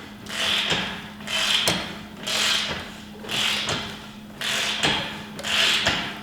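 Wrench tightening a nylock nut onto a cart handle's pivot bolt, a rasping stroke about once a second with small clicks between strokes.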